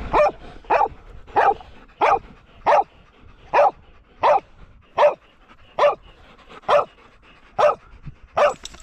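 A dog barking over and over at a steady pace, about a dozen alike barks, roughly three every two seconds.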